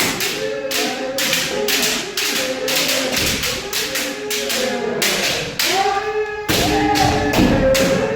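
Bamboo shinai striking kendo armour in quick succession, a sharp clack two or three times a second, mixed with loud drawn-out kiai shouts from the kendoka, the longest near the end.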